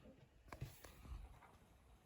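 Near silence: faint room tone, with a few soft clicks about half a second in and a low thump a little after one second.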